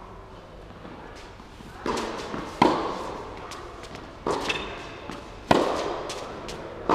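Tennis ball struck back and forth in a rally: sharp racket hits about every one to one and a half seconds, each ringing on in the large indoor tennis hall.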